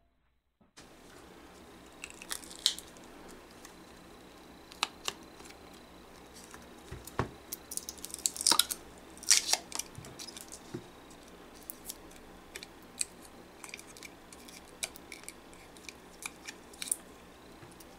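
Hands flexing a silicone mold and pulling a cured resin pen blank out of it: scattered clicks, taps and rubbery scrapes over a faint hiss, busiest about halfway through.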